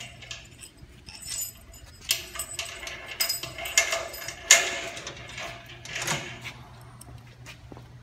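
Metal foot cable and clips clinking and rattling against a carpet-cutting machine as the cable is fitted to its side: a run of jingling clicks starts about two seconds in, with the sharpest knock about halfway through.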